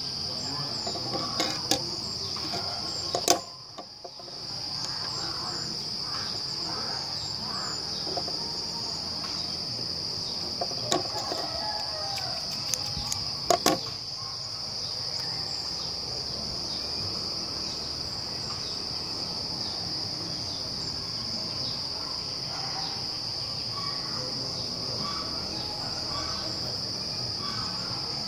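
Steady high-pitched insect chorus. A few sharp clicks and knocks from objects handled on a table come in the first half, and all sound briefly drops out about four seconds in.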